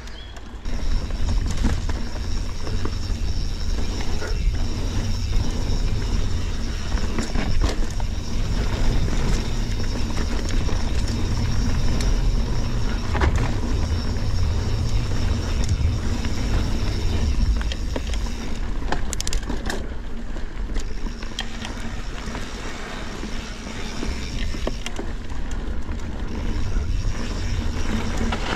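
Transition Spur mountain bike ridden along a dirt and rock trail. Heavy wind rumble on the microphone runs under constant tyre noise and many quick clicks and rattles from the bike over roots and rocks. It gets louder about a second in.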